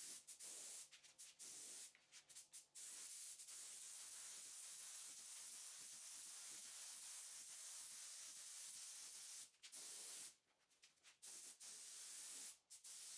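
Compressed-air spray gun with a gravity-feed cup spraying filler primer onto a car body panel: a steady hiss of atomising air. It stops and starts several times in the first three seconds and again near the end as the trigger is let off between passes, with one long unbroken pass in between.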